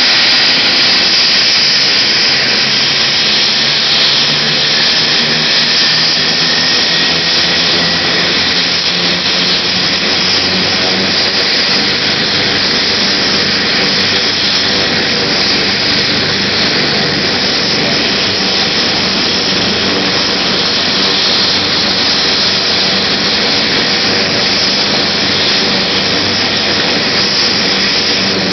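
Twin-turbine AgustaWestland AW139 air ambulance helicopter running on the helipad with its rotor turning before lift-off: a loud, steady turbine whine and rotor noise, with a faint high whine that rises slightly a few seconds in.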